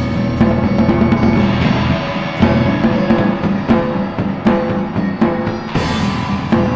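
Music: a steady drum beat, roughly one hit every three-quarters of a second, over sustained pitched notes.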